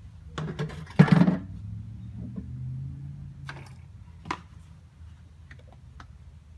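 A plastic pail scooping and sloshing cement slurry in a plastic tub, with a loud scrape and knock about a second in and a sharp tap near four seconds.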